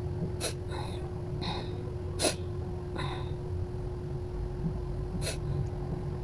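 A person sniffling and taking short, sharp breaths through the nose between sneezes: three quick sniffs, the loudest about two seconds in, with fainter breaths between them. A steady faint hum runs underneath.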